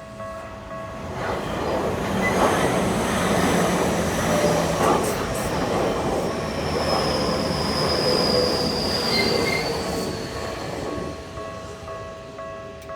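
A commuter train passes over a Japanese railway level crossing. The wheel and rail noise builds about a second in, stays loud through the middle and fades near the end, with a high squeal sliding slightly lower midway through the pass. The crossing's warning bell rings in steady repeated dings, heard plainly at the start and end and buried under the train in between.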